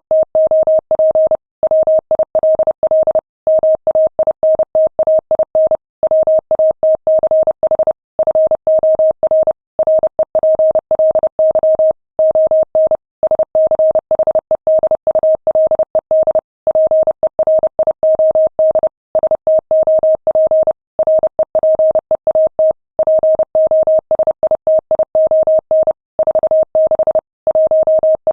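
Morse code sent at 30 words per minute: a single clean steady tone keyed rapidly on and off in dots and dashes, with short gaps between words.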